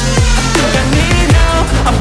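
Electronic background music with a heavy bass line and repeated falling synth sweeps.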